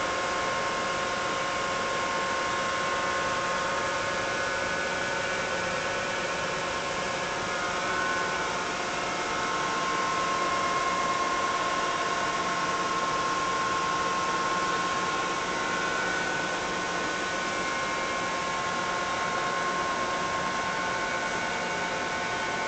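Steady hum of a ventilation system: fan noise and air rushing through ducts, with several constant tones over an even hiss.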